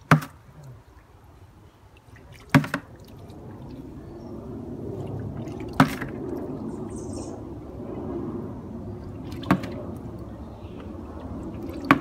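Water splashing as a plastic bucket is dipped into a garden pond, with five sharp splashes spread every few seconds over a steady wash of water noise.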